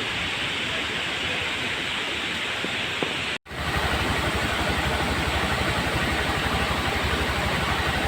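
Steady rush of waterfall water. After a sudden cut about three seconds in, a louder, deeper rumble with fast even low pulsing joins the rush.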